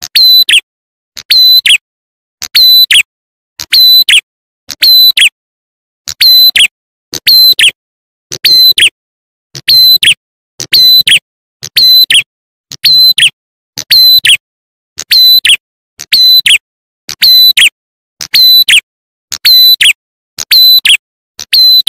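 Looped lure recording of prenjak atas (ciblek klawu) calls: a loud, sharp, high call about once a second, each with a quick downward-sweeping note.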